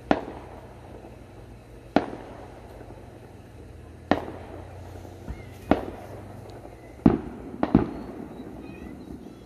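Aerial fireworks bursting: about six sharp bangs one to two seconds apart, each trailing off in a short rumbling echo. The loudest comes about seven seconds in, with another close behind it.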